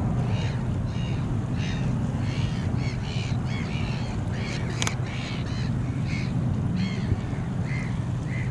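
Birds calling over and over in short, quick calls, over the steady low rumble of a distant jet airliner on its takeoff roll. A single sharp click about five seconds in.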